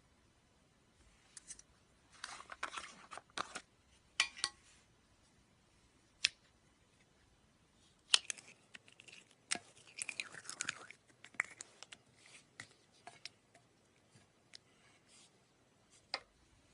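Slime being squeezed and stretched by hand, making irregular bursts of crackling, popping and sharp clicks, busiest early on and again in the middle.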